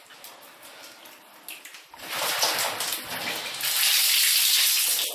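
Water running and splashing on a tiled floor: it starts about two seconds in, builds to a steady rush and cuts off suddenly at the end.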